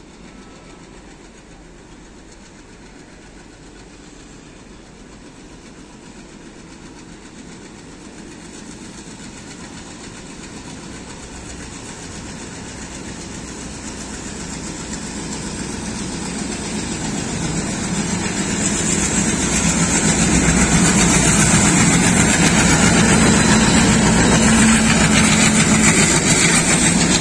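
WDM-3D diesel locomotive running as it hauls a passenger train toward the listener. It grows steadily louder and passes close by about three-quarters of the way through, followed by the rumble of the coaches rolling past on the rails.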